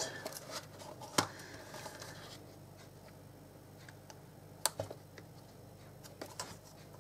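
Quiet handling of papercraft materials: two sharp clicks or taps, about a second in and just under five seconds in, with a few fainter ticks between.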